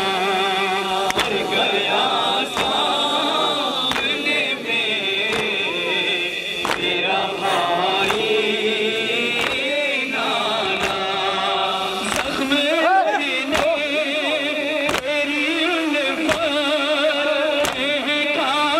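A noha, a Shia mourning lament, sung by men into a microphone, with other voices chanting along. Short sharp strikes come about once a second: mourners beating their chests in matam.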